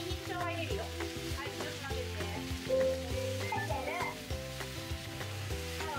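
Ground pork frying and sizzling in an iron frying pan while it is stirred with a wooden spatula, with garlic and ginger just added; chicken pieces fry in a second pan. Soft background music with held chords plays under it.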